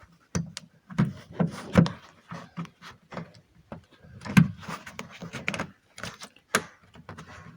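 Handling and tool noise on a car door trim panel as a Torx bolt is worked at through an access hole: irregular clicks, knocks and rubbing of a tool against the plastic.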